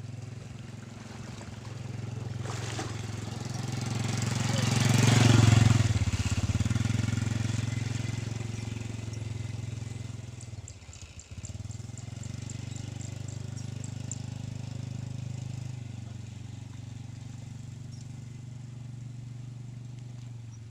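An engine running with a steady low hum, swelling to its loudest about five seconds in, dropping away briefly near eleven seconds, then running steadily again.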